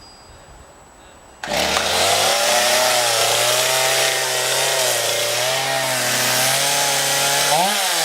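Chainsaw starts suddenly about a second and a half in and runs at high speed as it cuts into the tree, its pitch wavering under load. Near the end it revs up briefly, then drops away.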